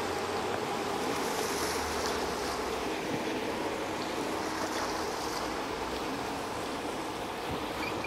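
Passenger boat's engine running with a steady hum as it motors away, mixed with the wash of its wake on the water.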